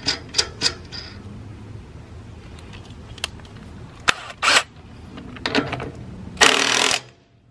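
Light clicks and knocks of a lug nut and impact socket being handled on a steel trailer wheel, then a brief half-second burst from a HYCHIKA 20 V cordless impact wrench running on the lug nut near the end, cut off abruptly.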